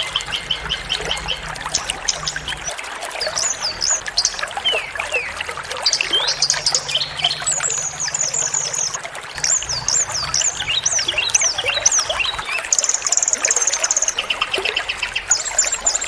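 A dense mix of small songbirds' rapid chirps, trills and whistles, one phrase after another, over a steady rush of running water. It is a masteran bird-song tutor recording of small birds, played to white-rumped shamas.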